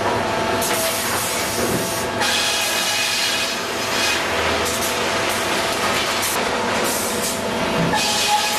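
Sawmill machinery of a Grey Series 2000 reversing belt sawbench running: a steady mechanical din with a hiss that swells and fades every second or two.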